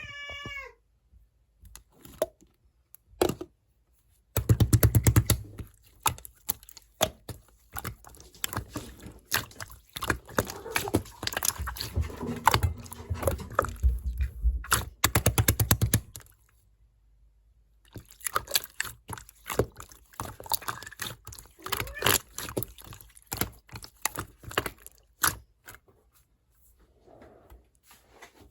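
Orange clear slime being squished and pressed by hand: dense runs of small sticky clicks and pops, with a pause of about two seconds midway.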